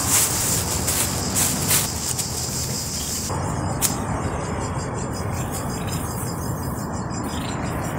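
A broad hiss for the first three seconds, then, after an abrupt change, insects trilling in a steady pulsing high band over a constant low rumble, with one sharp click.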